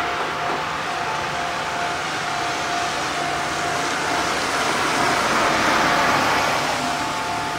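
Steady rushing noise of a vehicle running close by, fading slightly and swelling again about five seconds in, with a faint steady whine over it.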